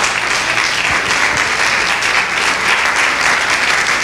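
Church congregation clapping steadily in praise: dense, even applause that holds at one level.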